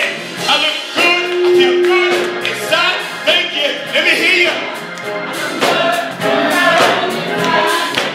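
Gospel song: a voice singing over instrumental backing, with one steady held note from about a second in.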